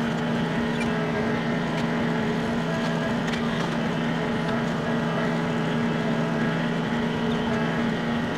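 Compact utility tractor's engine running at a steady pitch as the tractor drives across the lot.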